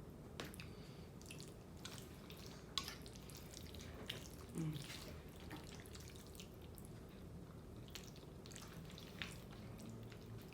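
Close-up wet chewing and mouth sounds of someone eating creamy fettuccine alfredo: soft, irregular smacks and clicks, with a short low hum about halfway through.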